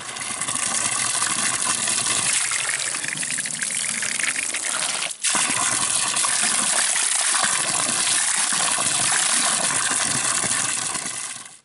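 Well water running from a spout into a plastic bottle, filling it with a steady gushing splash, briefly broken off about five seconds in.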